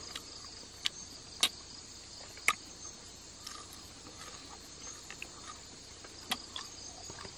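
Night insects chirring in a steady high drone, with a few sharp crunches as crispy fried mantis is chewed close to the microphone.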